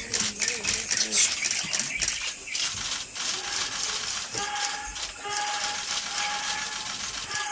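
Forest ambience: a high steady insect drone with many quick clicks and rattles. From about three seconds in, a clear level whistled note repeats several times.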